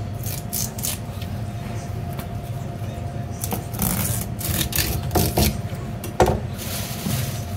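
A large knife rasping through the fringe fins of a whole halibut on a plastic chopping board, in several short scraping strokes, with a sharp thud a little after six seconds. A steady low hum runs underneath.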